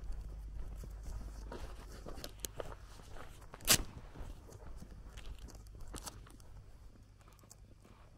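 Footsteps on a grassy dirt path, soft irregular steps and rustles over a steady low rumble, with one sharp crack a little before halfway that is the loudest sound and a smaller one about two seconds later.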